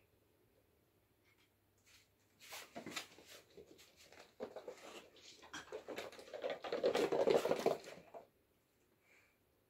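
Kittens' paws scampering and scuffling over a rug and hard floor in irregular bursts of pattering, heaviest about seven seconds in and stopping about a second before the end.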